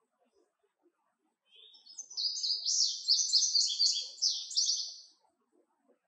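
Male indigo bunting singing one song of quick, high notes repeated in short groups. It starts about a second and a half in and lasts nearly four seconds.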